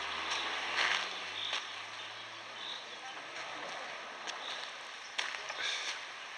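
Outdoor ambience: a steady hiss with short high chirps about once a second and a few sharp clicks, and a faint low hum that fades out in the first two or three seconds.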